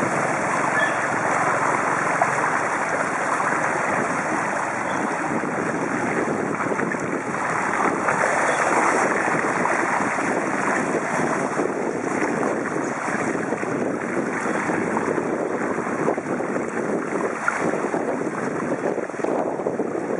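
Steady, harsh wind noise on the microphone of a camera mounted on a moving bicycle, mixed with the wash of the bicycle's tyres through floodwater.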